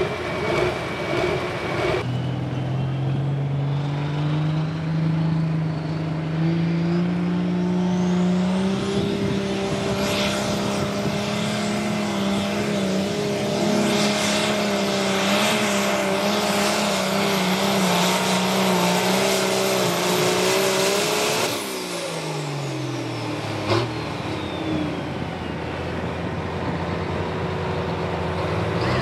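Turbocharged diesel New Holland Light Pro Stock pulling tractor under full load, its engine pitch climbing slowly and then holding, with a high turbocharger whistle rising over it. About three-quarters of the way through the throttle is shut and the engine and turbo wind down quickly, followed shortly by one sharp crack.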